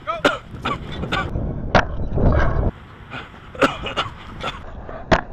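A string of short, sharp vocal calls, about a dozen in five seconds, over a low rumble of wind on the microphone.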